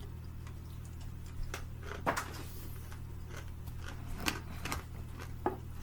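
A man eating nuts: a few scattered crunches and clicks over a steady low hum.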